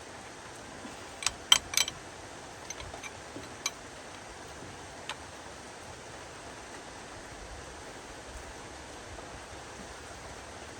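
A few sharp clinks and knocks, the loudest three close together about a second in, then scattered lighter ticks, over a steady hiss: metal hand tools being handled during truck repair work.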